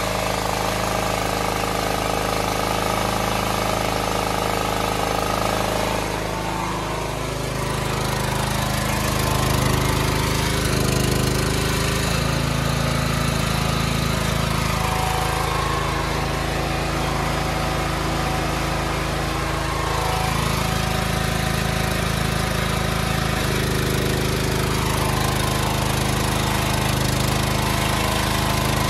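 Small generator engine running steadily, its note shifting several times as the engine speed changes.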